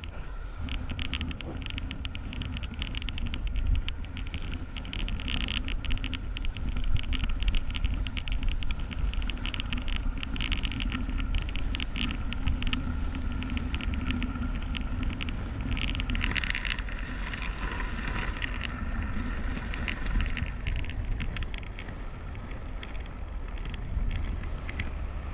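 GoPro Hero 8 sliding along a taut jute twine line: a steady rumble and hum with dense, rapid crackling and scraping of the twine through the camera mount, busiest about two thirds of the way through.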